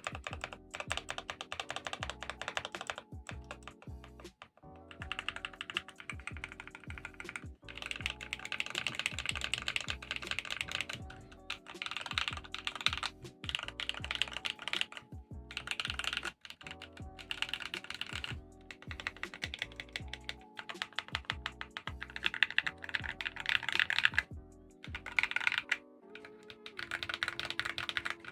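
Typing on a Glorious GMMK Pro mechanical keyboard with factory-lubed Akko V3 Cream Yellow Pro linear switches: quick runs of keystrokes broken by short pauses. Background music plays underneath.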